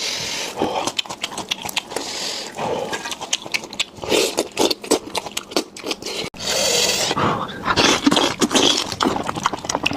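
Close-miked eating: chewing and crunching on chicken leg cartilage, with many quick crunches and wet mouth smacks.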